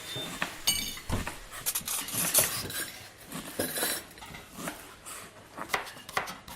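Restaurant kitchen clatter: pots, pans and cutlery knocking and clinking irregularly, with a short metallic ring about a second in.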